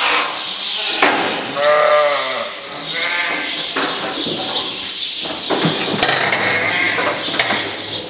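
Ewes bleating, with one long wavering bleat about two seconds in and shorter calls after it. A few sharp knocks come in between.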